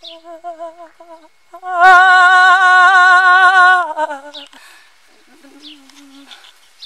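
A woman's voice keening in a trembling, wavering pitch. Soft quavering tones give way, about two seconds in, to a loud held cry lasting about two seconds that drops off, followed by quieter quavering whimpers.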